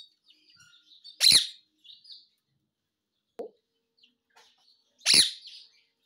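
Indian ringneck parakeet (rose-ringed parakeet) giving two short, loud, shrill squawks about four seconds apart, with soft little chirps and clicks in between.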